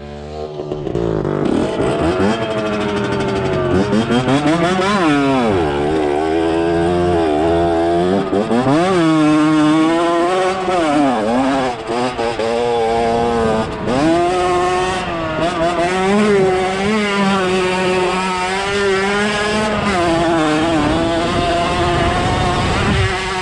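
Off-road motorcycle engine under riding load, its pitch climbing and falling over and over as the throttle is opened and closed.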